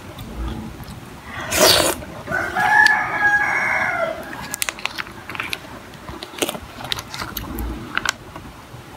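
A rooster crowing once, starting about a second and a half in with a short rough onset and then a held, pitched call of a couple of seconds that drops at the end. Afterwards come a few light clicks of a metal spoon against a plastic cup.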